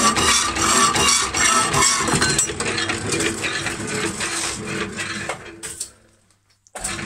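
Horizontal metal-cutting bandsaw running, its blade cutting through a steel bar with a steady grinding chatter that dies away about six seconds in.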